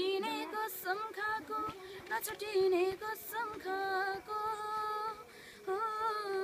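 A 13-year-old girl singing unaccompanied: a single melodic line with gliding, wavering ornaments and several held notes, broken by a few short pauses for breath.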